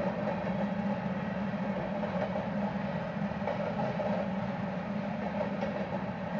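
Covered hopper cars of a freight train rolling past on the rails, a steady rumble of steel wheels with no breaks.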